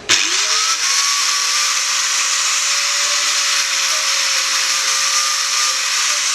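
Electric angle grinder switched on: the motor spins up to speed within the first second, then runs steadily with a constant whine over a loud hiss.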